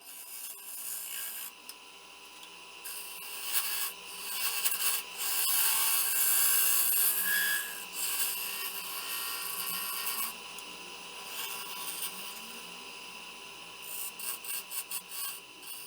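Wood lathe running with a steady motor whine while a tool scrapes against the spinning itin wood; the scraping hiss is loudest through the middle and eases off later, with a few short rasps near the end.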